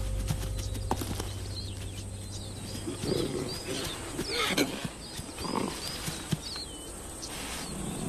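Rustling and scuffling in grass as cheetah cubs chase a fawn. From about three seconds in come low animal calls and a run of short, high, rising-and-falling chirps.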